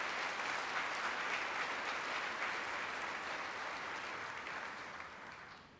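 Audience applauding, many hands clapping together steadily, dying away over the last second or so.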